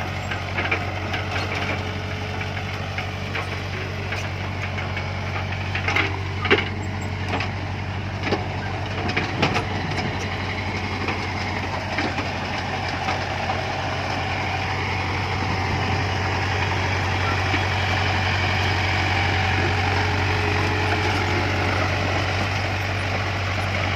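JCB backhoe loader's diesel engine running steadily while it digs, with a few sharp clanks and knocks in the middle, and the engine growing a little louder near the end.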